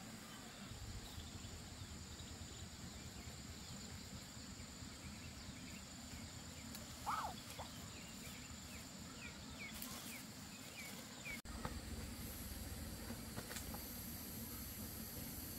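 Steady high-pitched drone of insects in the undergrowth, with a few faint short chirps and one brief louder sound about seven seconds in. After an abrupt cut about eleven seconds in, the insect drone continues at a higher pitch.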